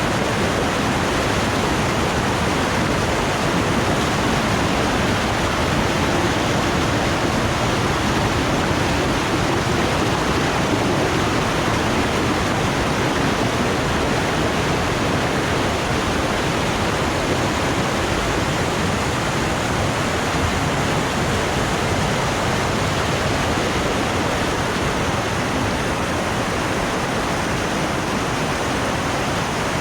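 Waterfall on the Putna river: a loud, steady rush of falling water that does not change.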